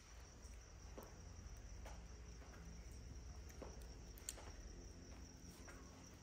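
Faint, steady high trill of crickets, with scattered soft crackles from a wood fire about once a second and one sharper pop a little past four seconds in.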